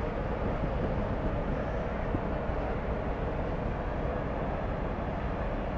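Steady low rumble of a large ferry's engines and machinery, mixed with wind noise on the microphone.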